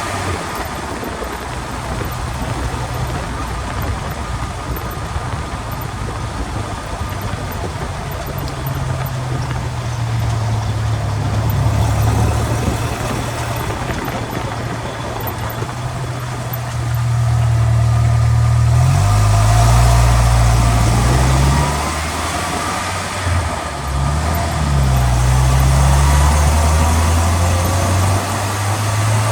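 Truck driveline and road noise picked up underneath at the transmission skid plate while driving: a loud low hum that steps and shifts in pitch as speed changes, with a hiss that swells at times. The owner's suspected rear-differential noise is not distinct from this spot.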